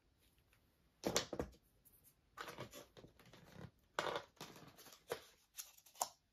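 Folded cardstock accordion pieces being handled: several short bursts of paper rustling and crinkling, with a light knock as a small plastic glue bottle is set down on the scoring board.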